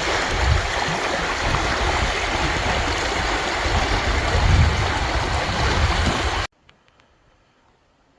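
A loud, steady rushing noise with low rumbling swells, like fast-running water, that cuts off abruptly about six and a half seconds in, leaving near quiet with a few faint clicks.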